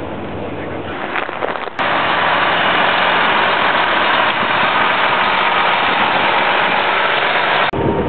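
Steady low drone of a coach bus cabin on the move. About two seconds in, it cuts abruptly to a louder, steady engine din beside the parked coach. It cuts back to the cabin drone near the end.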